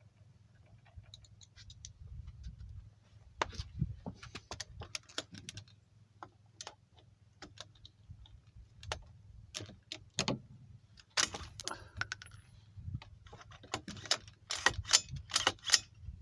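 Irregular metallic clicks, taps and rattles of a screwdriver and rifle parts being handled, as a jammed 6.5 Creedmoor rifle is worked on to free a bullet stuck in it. The clicks come in clusters, busiest in the second half.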